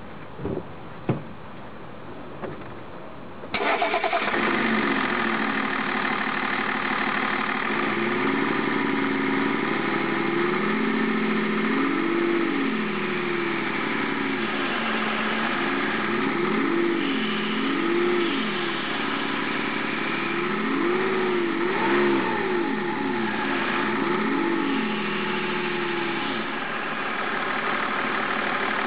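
A few clicks, then the BMW 530d's 3.0-litre straight-six turbodiesel starts about three and a half seconds in and runs, revved up and down several times between spells of idling. It is a freshly rebuilt engine making a noise that the owner takes for abnormal.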